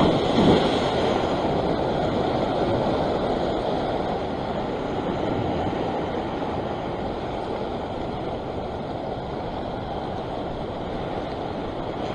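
Ocean surf breaking over a rock ledge, loudest in the first second, then foaming water rushing and washing back, slowly easing off.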